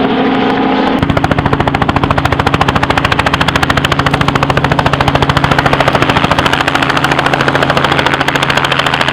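Helicopter running steadily while an airsoft minigun fires one long, continuous burst, a very rapid, even rattle that starts about a second in.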